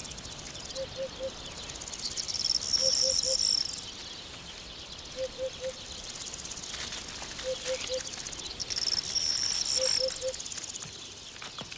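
Woodland ambience: a bird repeats a call of three short, low hooting notes about every two seconds, while an insect's high buzz comes and goes twice.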